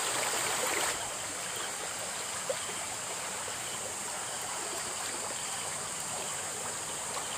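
Shallow creek water running over rocks, a steady trickling rush that is a little louder for the first second, with a steady high-pitched whine above it and one small knock about two and a half seconds in.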